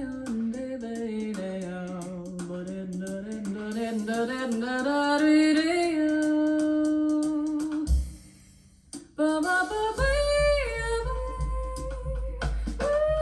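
Jazz recording played through KEF LS50 Meta bookshelf speakers: a held melody line slides slowly down and back up. It breaks off about eight seconds in, and the band returns with a steady low beat.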